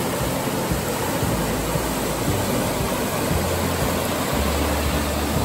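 Heavy rain falling: a steady, even hiss, with a low hum underneath that shifts in pitch a few times.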